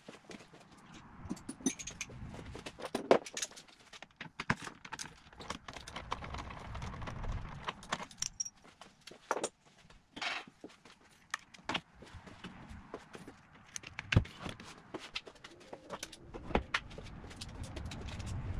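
Scattered metallic clinks, rattles and knocks of hand tools and fittings being handled while a car battery is unbolted and lifted out of the engine bay. Two sharper knocks stand out, about three seconds in and near fourteen seconds.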